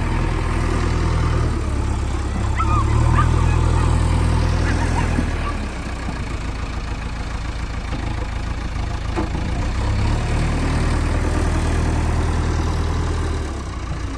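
Diesel engine of a JCB 3DX backhoe loader running, its note rising under load twice, from about two to five seconds in and again from about ten to thirteen seconds in, between stretches of lighter running.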